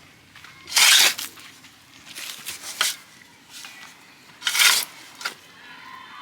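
Gritty scraping and crunching of packed dirt being worked around a fence post, with two loud scrapes about a second in and near the five-second mark and a few softer ones between.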